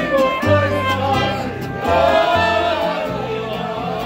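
Live mariachi music: a guitarrón plucks a line of deep bass notes, changing about every half second, under strummed strings and a man singing.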